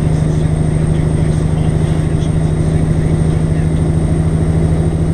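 Semi-truck's diesel engine running steadily while the truck drives, heard from inside the cab as a low, even drone.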